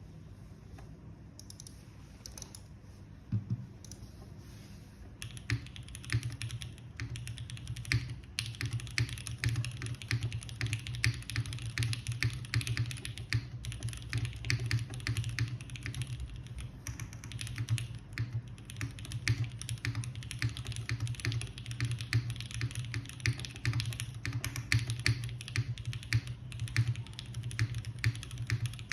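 Kalam Dalco 959 Mini GT mechanical keyboard typed on fast and continuously, a dense stream of key clacks. It has lubed, filmed SP-Star Meteor White switches on an aluminium plate and GMK keycaps. A few single keystrokes come first, and the steady typing starts about five seconds in.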